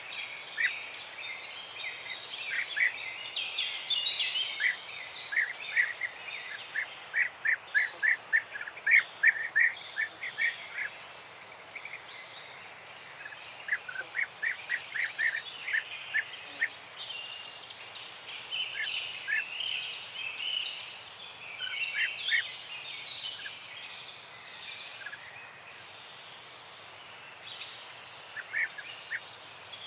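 Several birds singing and calling: runs of quick, repeated chirps, and a thin high note repeated about every two seconds, over a steady background hiss.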